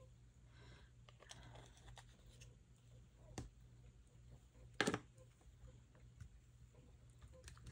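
Faint tabletop handling of craft materials, with a light tap a little past three seconds and one sharp tap about five seconds in, over a low steady hum.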